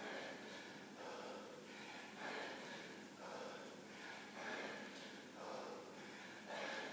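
A man breathing hard in quick, heavy breaths, a little under one a second, from the exertion of a set of kettlebell swings.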